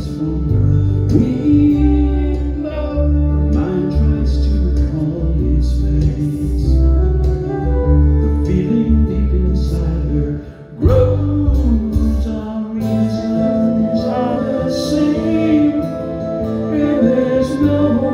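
Live band music: flute over acoustic and electric guitars and a heavy bass, with some singing. The music drops briefly about halfway through, then comes back with a changed bass line.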